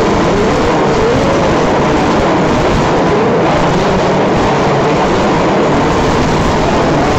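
Several small nitro engines of radio-controlled 4WD off-road buggies racing at once, their whine rising and falling as the cars rev up and brake around the dirt track.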